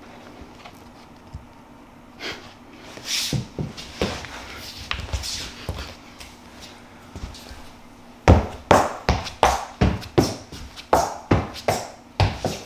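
Rustling and scuffing, then from about eight seconds in a steady run of sharp slaps about two a second: footsteps in Nitori N-Warm slippers on a wooden floor.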